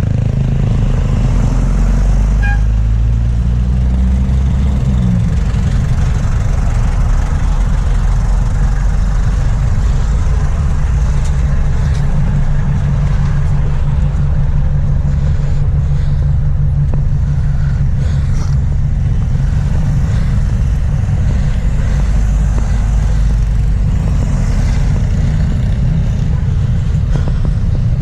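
A motor vehicle's engine running close by. Its pitch rises and falls a few seconds in, then it settles into a steady low rumble.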